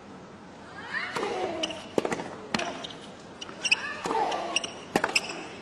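Tennis ball bouncing on a hard court and being struck, a series of sharp knocks irregularly spaced, with brief voices in the background.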